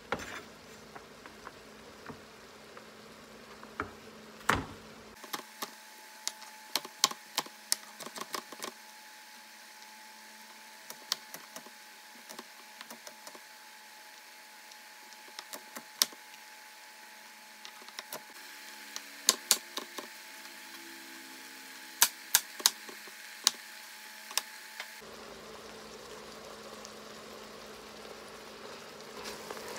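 Knife chopping carrots on a wooden cutting board: irregular sharp knocks, some in quick runs. Underneath is the faint steady sizzle of ground beef browning on sauté in an Instant Pot.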